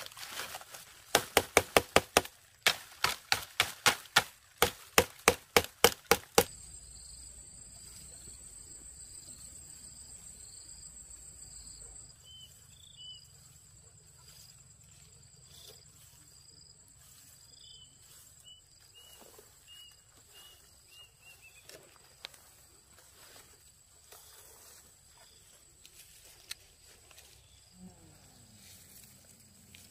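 A fast run of sharp chopping strikes, about four a second, stops about six seconds in. Outdoor ambience follows: an insect's steady high buzz for several seconds, then a series of short high chirps.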